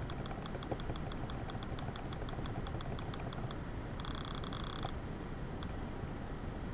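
Rapid, evenly spaced clicking of computer controls, about seven clicks a second, stepping down through a long on-screen list. The clicking stops about three and a half seconds in. A brief dense burst of clicking follows near the four-second mark, then one lone click.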